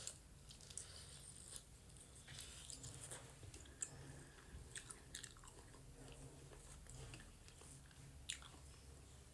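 Close-miked chewing of goat meat and dhido: faint wet mouth smacks and small clicks every second or so, with a sharper click about eight seconds in. The eater finds the goat meat tough.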